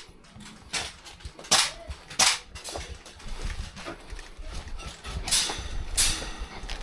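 Airsoft guns firing single shots during close-quarters play: about five sharp cracks at irregular intervals, with a gap of a few seconds in the middle.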